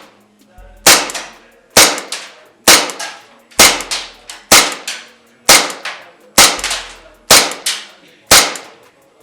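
ASG CZ 75 SP-01 Shadow gas blowback airsoft pistol on green gas firing 0.3 g BBs: nine sharp shots at a steady pace of about one a second, each with a short ring-off.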